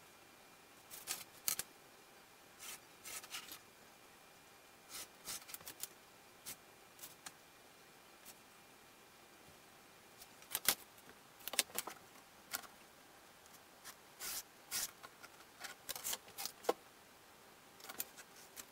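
Scattered light clicks, taps and short scrapes of metal layout tools, a steel square and ruler and a pencil, being handled and set down on an OSB workbench. They come irregularly, a few at a time, with a brief cluster about ten seconds in.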